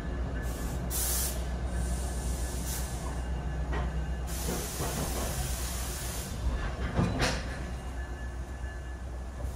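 Train standing with a steady low rumble, its air brakes hissing in short bursts and once for about two seconds in the middle. A few metallic clanks ring out, the loudest about seven seconds in.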